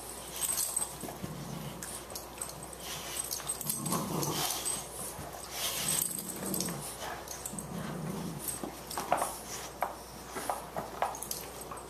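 Two Boxer dogs, an adult and a puppy, play-fighting, with low play growls coming again and again. Several short sharp sounds come close together near the end.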